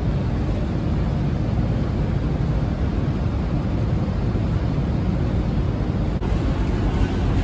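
Steady low rumble of the passenger ship Salvia Maru under way, heard from its open deck, with wind on the microphone.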